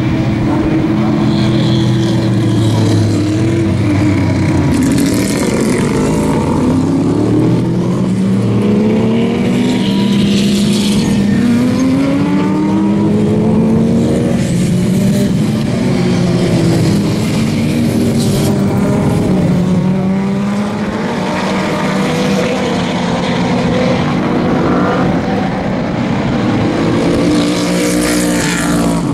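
A pack of sports and GT race cars, including open-cockpit prototypes and Porsche 911-style GT cars, running past on the track under power. Several engines overlap at once, their notes rising and falling as they accelerate and change gear.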